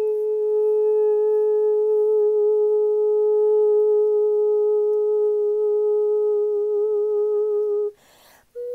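A woman's voice toning: one long sung vowel held on a steady pitch, with a slight waver near its end. It breaks off about eight seconds in for a short breath, and a new note begins just before the end.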